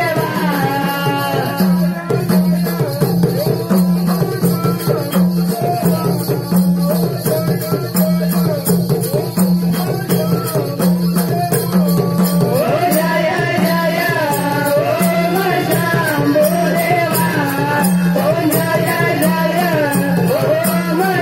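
Live folk song: a voice singing a melody over a two-headed barrel drum played in a steady beat, with a fast, steady ticking on top. The singing grows fuller about two-thirds of the way through.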